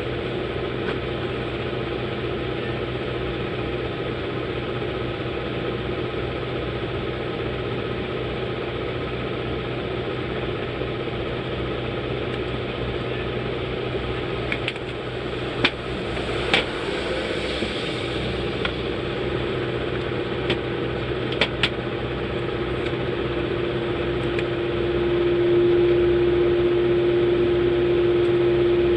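A small motor or fan running with a steady hum, with a few sharp clicks past the middle. Its hum grows louder about 25 seconds in, with a strong steady tone.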